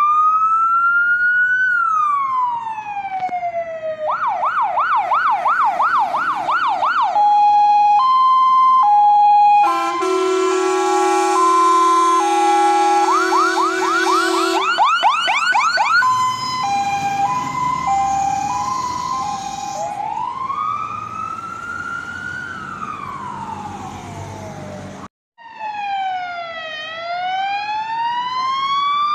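Fire engines on an emergency run with electronic sirens. The sirens switch between a slow rising-and-falling wail, a rapid yelp and a two-tone hi-lo, with a long steady horn blast sounding for about five seconds in the middle. After a brief dropout, two sirens wail together, out of step with each other.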